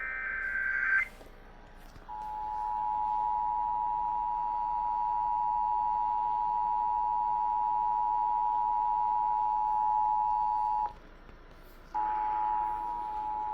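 Emergency Alert System broadcast: a burst of warbling SAME data tones ends about a second in. Then comes the EAS dual-tone attention signal, held steady for about nine seconds. It cuts off and starts again about a second later. This is the alert tone that heralds a tornado warning.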